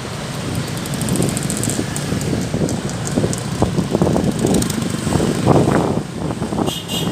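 A vehicle travelling along a road: engine and road noise with an uneven low rumble.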